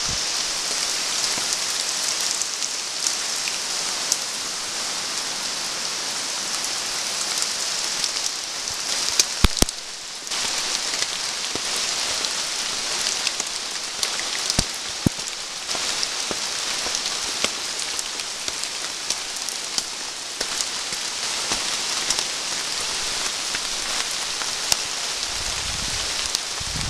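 Steady rain falling on rainforest foliage, a continuous hiss dotted with drips. There are a few sharp knocks about nine seconds in, and low rumbling near the end.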